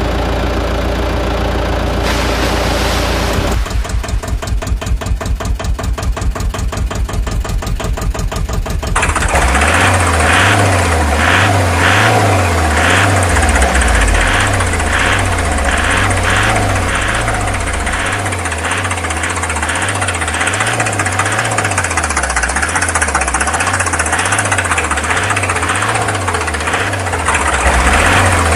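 Tractor engine sound, running steadily at first. About three seconds in it changes to a rapid chugging knock. Near nine seconds it becomes a louder, labouring engine note whose pitch steps up and down, as if pulling under load.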